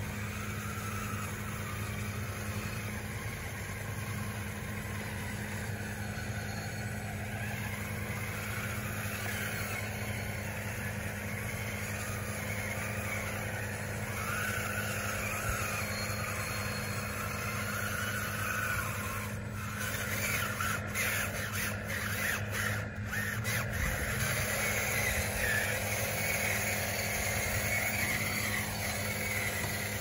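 Electric drive motors and gearboxes of a radio-controlled construction model whining as it drives, the pitch wavering up and down with the throttle over a steady low hum. A quick run of clicks comes about two-thirds of the way through.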